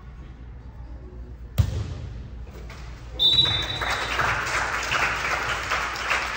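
A single sharp thump about a second and a half in, then a short, high whistle blast, typical of a referee's whistle, about three seconds in. Right after it, loud, continuous crowd noise with voices and clapping.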